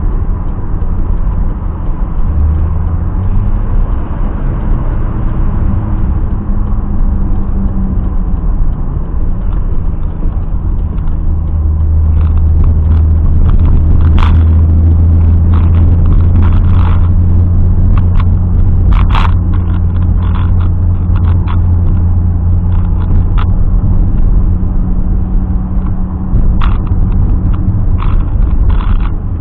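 Turbocharged BMW M20B27 2.7-litre straight-six in an E30 running while the car is driven. The engine note rises and falls over the first several seconds, then settles louder and steadier from about twelve seconds in, with scattered sharp clicks and knocks over the top.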